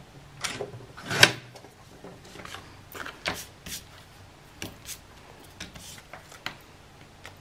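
Paper being trimmed by hand: a dozen or so short, scratchy strokes at irregular intervals, the loudest about a second in.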